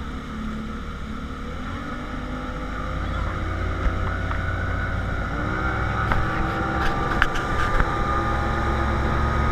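Evinrude outboard motor running a motorboat at speed, with the rush of its wake. The engine pitch rises and the sound grows louder about halfway through as the throttle opens. A few light clicks come near the end.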